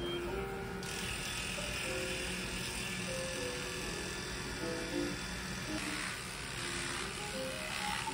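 Cordless electric pet clipper buzzing steadily as it trims a small dog's fur, starting about a second in, with light background music.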